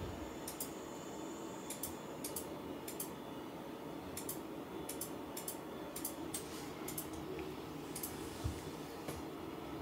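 Cat licking itself close up: a run of small, sharp, wet clicks, irregular and often in pairs, about one or two a second, over a faint steady room hum. A single soft low bump comes near the end.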